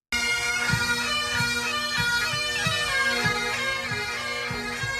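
Bagpipes playing a tune over a steady drone, with a drum beating time about twice a second: a pipe band. It starts abruptly.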